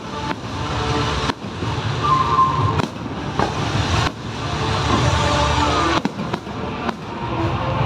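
Fireworks bursting and crackling, with several sharp bangs over a background of music.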